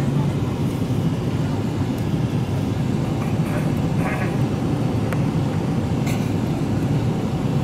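Steady low cabin rumble of a Boeing 777-300ER on approach to landing: the GE90-115B engines and the rush of air over the airframe, heard from a window seat.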